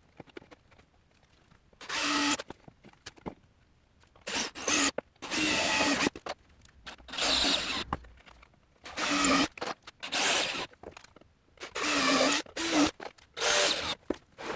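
Power drill run in about ten short bursts, each about half a second to a second long, stopping and starting again.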